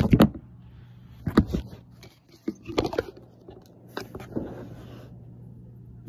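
Fluffy, crumbly slime being squished, stretched and pulled apart by hand, in four short bursts of crackly squelching.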